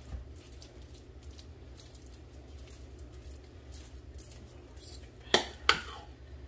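A metal spoon spreading apple pie filling over dough with faint, soft scrapes, then two sharp clinks close together near the end as the spoon strikes the rim of a ceramic bowl while scooping more filling.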